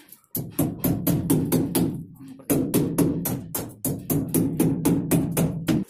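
Background music with a fast, steady drum beat, about four strokes a second, breaking off briefly about two seconds in.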